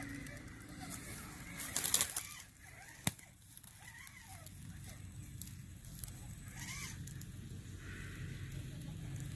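Dry leaf litter rustling and crunching, loudest about two seconds in, then a single sharp click. Faint rising-and-falling calls come and go in between.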